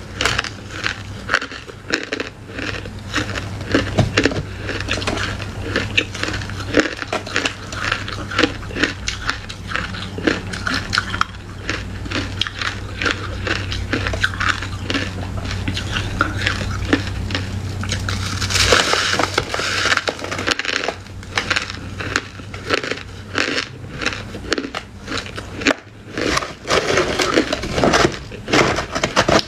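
Close-up crunching of frozen pomegranate arils and frosty ice being chewed: a dense run of small, crisp crunches, with a louder, grittier spell a little past halfway.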